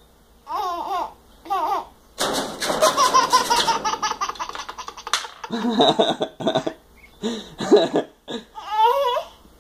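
An 11-month-old baby laughing in short, repeated bursts of giggles. About two seconds in there is a louder, noisier stretch of some three seconds.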